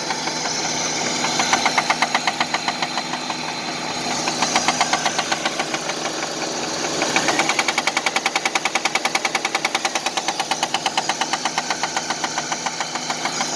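A 1999 Nissan Altima's 2.4-litre four-cylinder engine running with a deep, very loud, rhythmic knock from a worn connecting-rod bearing (rod knock). The knocking quickens about halfway through.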